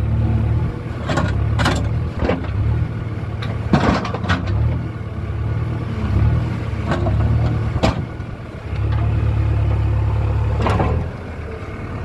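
JCB 3DX backhoe loader's diesel engine running and swelling under load as the backhoe arm works, with about eight sharp knocks of the bucket and stones striking each other.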